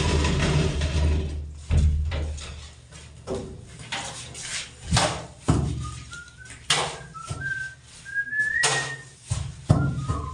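A whistled tune, a single clear note stepping up in pitch over several seconds and dropping near the end, over a series of sharp knocks and a low steady rumble early on.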